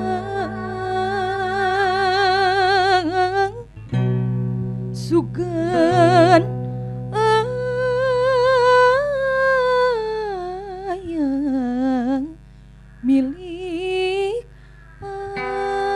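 Tembang Sunda Cianjuran: a woman singing a slow, ornamented panambih melody with wide vibrato over plucked kacapi zithers and a bowed rebab, the phrases breaking off briefly between lines.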